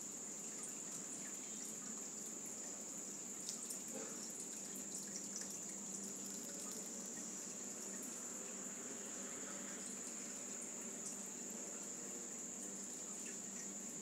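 Steady rush of river water churning over rocks, with a constant high-pitched whine running through it.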